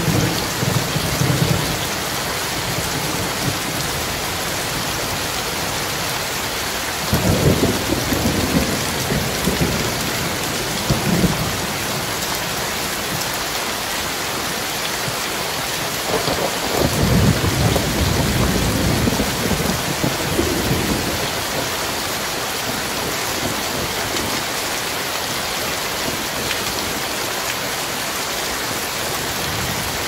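Steady rain falling on a wet paved road, with low rolls of thunder three times: at the start, about seven seconds in, and again from about sixteen to twenty-one seconds.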